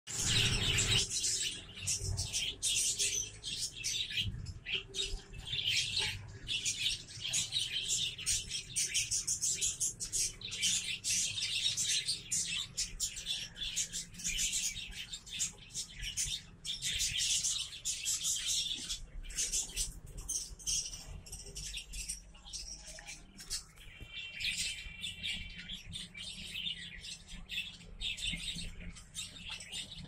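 Parrot nestlings cheeping continuously in a dense, high-pitched chatter, with small clicks and scrapes.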